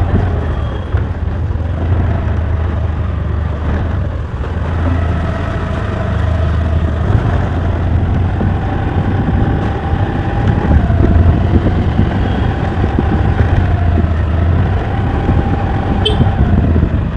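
Motor scooter riding along, its engine note shifting up and down a little every few seconds with speed, under a heavy steady rumble of wind on the microphone.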